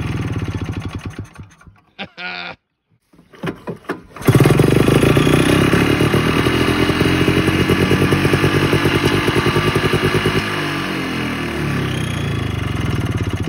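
1987 Ski-Doo Citation 250's single-cylinder two-stroke engine running, dying away within the first two seconds, then sputtering and catching again about four seconds in. It then runs steadily at a fast idle, settling a little lower about ten seconds in.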